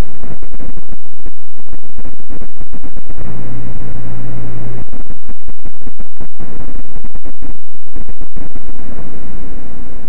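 Loud, distorted rushing noise from an overdriven security-camera microphone. A low steady hum comes in for about a second and a half near the middle.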